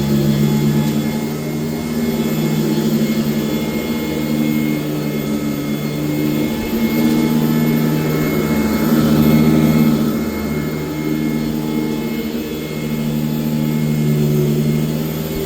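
1996 Sanitaire S663 Type A upright vacuum cleaner running steadily while vacuuming, a motor hum whose level swells and dips every few seconds.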